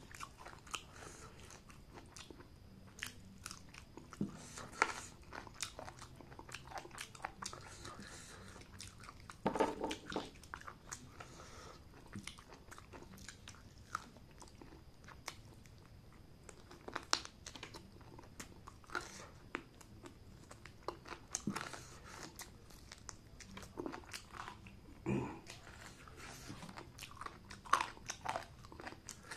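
Close-up eating sounds: a person chewing and biting into a gravy-coated chicken drumstick, with irregular sharp mouth clicks throughout and busier bursts of chewing about ten seconds in and again near twenty-five seconds.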